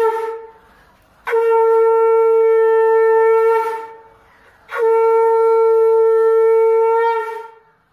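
Conch shell (shankha) blown in long, steady, single-pitch blasts, sounded for the evening sandhya prayer. A blast ends just after the start, then two more follow, each about two and a half seconds long, with a short gap between them.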